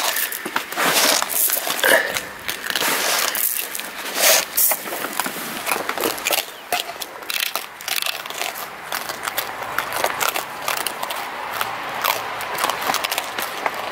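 Raccoons chewing and crunching dry pet-food kibble: a dense run of irregular crunches and clicks, busier and louder in the first half.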